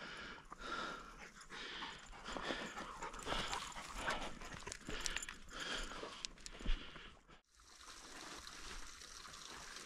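A hunting dog panting in quick, uneven breaths close to the microphone. About three-quarters of the way through it breaks off abruptly, leaving a faint steady hiss.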